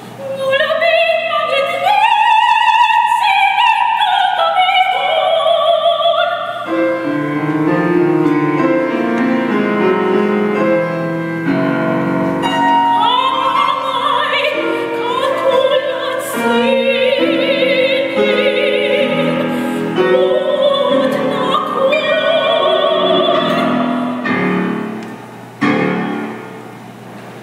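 A woman sings in classical operatic style with a wide vibrato, accompanied by a grand piano. Near the end the voice stops and the piano plays on quietly.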